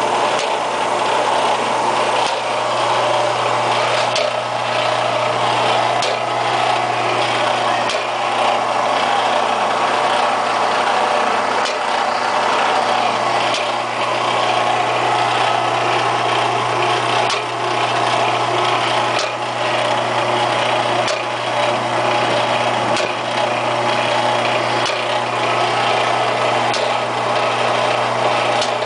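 HEUI injector test bench running steadily, its hum and noise broken by a regular beat about every two seconds.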